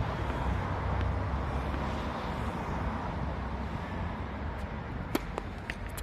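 Steady low outdoor rumble, with a few sharp knocks in quick succession near the end.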